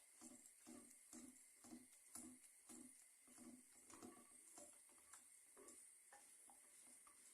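Faint, steady stirring of gram flour roasting in ghee in a pan, a spoon or spatula scraping the pan about twice a second.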